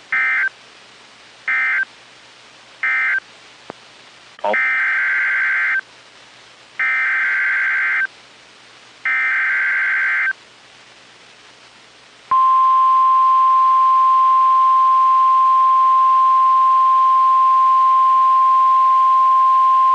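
NOAA Weather Radio emergency alert tones. First come three short bursts of SAME digital data screech, the end-of-message code. Then three longer SAME header bursts that open a new warning. About 12 seconds in, the steady 1050 Hz warning alarm tone starts and holds, heralding a tornado warning.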